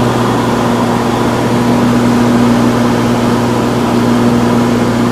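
Steady drone of the Cessna 414 Chancellor's twin piston engines and propellers heard inside the cockpit in flight, a constant low hum under a rushing noise.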